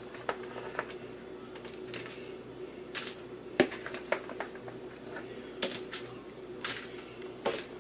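A spoon scooping food from a bowl and dropping it onto aluminium foil: scattered light clicks and knocks with a few brief foil crinkles, over a steady low hum.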